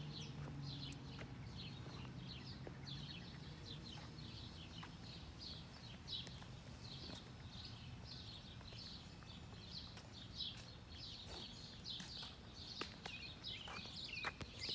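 Birds chirping over and over in short high calls, fairly faint, with a low hum that fades out about three seconds in and a few soft clicks later on.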